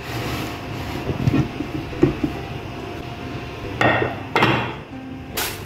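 Glass baking dish and a plastic cutting board being handled on a counter: rustling and scraping with several sharp knocks. The loudest knocks come about four seconds in and near the end.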